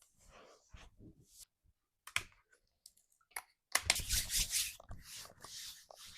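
Hands massaging a back: skin rubbing and pressing with scattered sharp clicks, building to a dense, louder flurry of clicks and rubbing about four seconds in.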